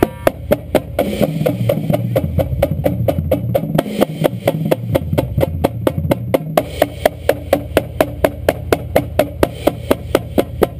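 Marching drumline playing a warm-up exercise: a steady run of even, sharp drum strokes, about four or five a second. For the first several seconds, tuned bass drums play a low line of stepping pitches underneath, then drop out.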